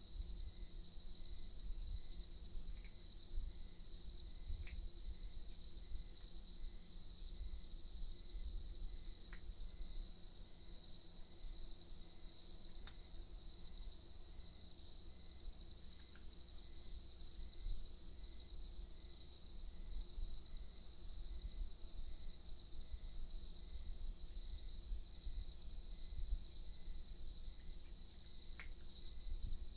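Crickets chirping in a steady, finely pulsing night chorus, over a low rumble, with a few faint clicks.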